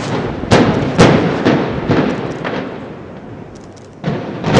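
Demolition explosive charges going off in quick sequence, about two sharp blasts a second, each trailing off in an echo; after a short lull the blasts start again near the end.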